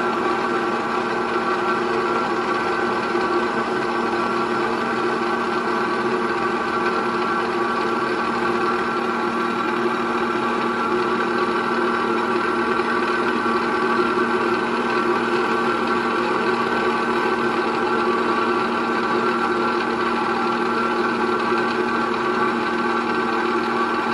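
Abrasive grinding wheel grinding the hard-faced flights of an oil expeller worm, metal on stone, with the grinder running at a steady, even pitch and no breaks.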